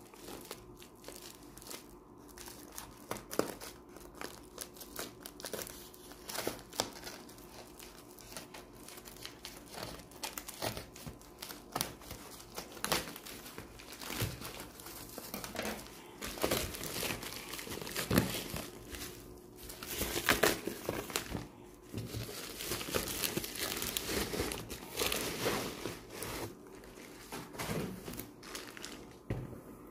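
White bubble-padded plastic mailer crinkling and crackling as it is pulled and torn open by hand, in irregular bursts that grow busier and louder past the middle.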